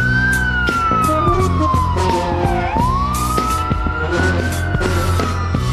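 Emergency-vehicle siren in a slow wail, its pitch climbing and then sliding down about once every three seconds, over background music.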